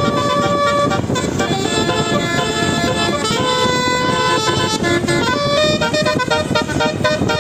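Vehicle horns sounding a run of held notes that change pitch every second or so, over steady traffic noise.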